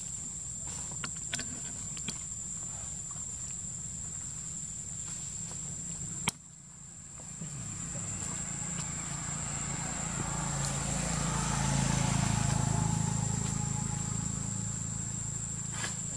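A steady high insect drone, like cicadas or crickets, runs through. About six seconds in there is a sharp click, after which a vehicle passing on a nearby road swells up, is loudest about two-thirds of the way through, and fades again.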